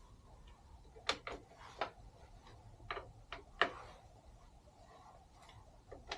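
About six light clicks and knocks over the first four seconds from a motorcycle front brake caliper and tools being handled while the caliper is fitted to the bike.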